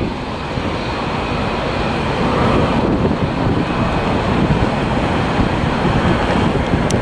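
Boeing 737-700's CFM56 jet engines at takeoff power as the airliner rolls down the runway, a steady rushing noise, with wind buffeting the microphone.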